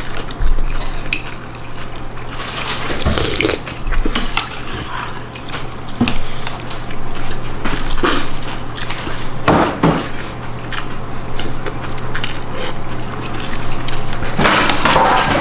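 Spoons and chopsticks clinking and knocking against soup bowls, with some liquid sounds, as noodle soup is eaten. A steady low hum runs underneath.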